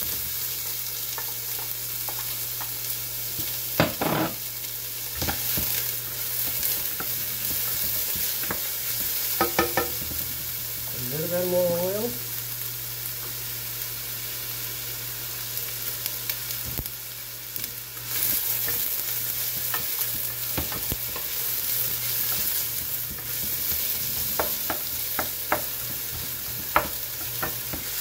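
Diced onion frying in hot olive oil in a stainless steel pan, a steady sizzle, with a wooden spoon tapping and scraping against the pan as it is stirred. The onions are sweating at the start of a Bolognese sauce.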